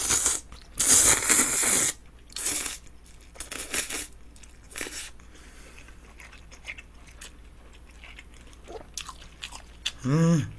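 Cold naengmyeon noodles slurped up in two long, loud bursts in the first two seconds, then a few shorter slurps and quieter wet chewing of the mouthful. A brief hummed "mm" near the end.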